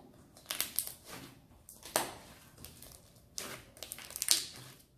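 A large mass of glitter slime kneaded and squeezed by hand: irregular wet squelches and crackling pops, the loudest about two seconds in and just after four seconds in.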